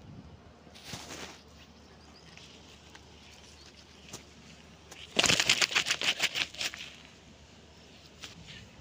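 A freshly caught singhara catfish thrashing against the sand: a rapid flurry of slaps that lasts about a second and a half, a little past halfway through, with a shorter rustle near the start.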